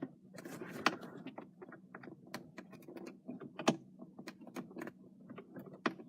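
Scattered small metallic clicks and taps of a long 4 mm Allen key being worked into the airbag bolts behind a car steering wheel, with a few sharper knocks about a second in, midway and near the end.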